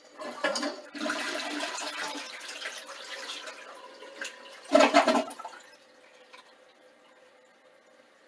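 Toilet being flushed as a test after being reset on a new waxless ring: water rushes into the bowl and fades over a few seconds, with a short, louder burst about five seconds in.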